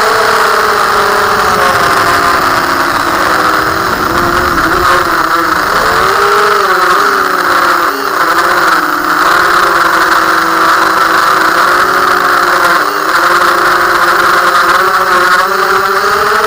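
Brushless motors of a 250-size FPV racing quadcopter (Cobra 2206 2100KV on SN20A ESCs running BLHeli 14.1 with Damped Light) whining under the propellers. The whine is made of several close tones that rise, fall and weave around each other as the throttle changes.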